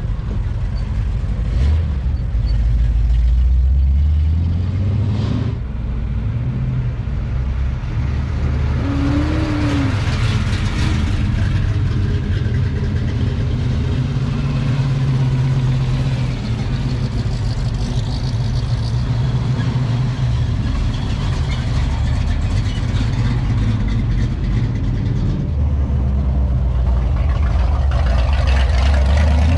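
Classic muscle car and hot rod engines running and revving as the cars pull away, with the engine note rising and falling several times and climbing again near the end as one accelerates.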